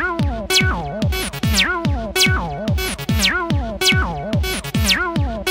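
Acid techno music: a kick drum about twice a second under gliding synth notes and quick falling zaps.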